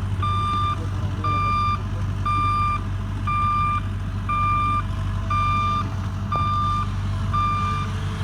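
Excavator's warning alarm beeping about once a second, each beep a steady half-second tone, over the low steady hum of its diesel engine.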